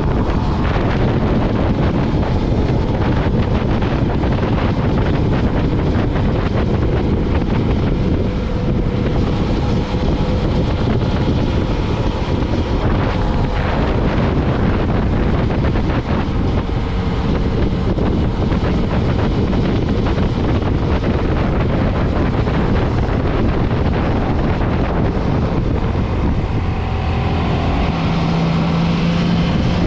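Motorcycle engine running under way, heavily mixed with wind noise on the microphone. Near the end a steady engine hum comes through more clearly.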